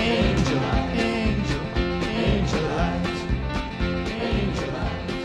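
Country-folk band playing the instrumental ending of a song, with plucked strings over a steady beat, growing gradually quieter.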